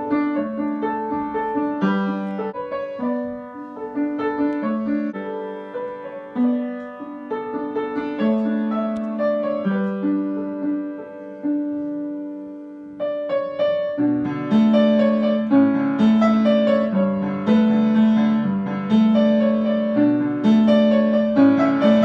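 Upright piano being played: a melody over sustained chords, breaking off briefly about halfway through, then coming back fuller and louder for the rest.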